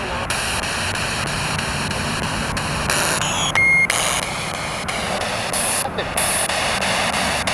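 Spirit box radio sweeping through stations: a steady hiss of static chopped by abrupt breaks, with a brief high beep about three and a half seconds in.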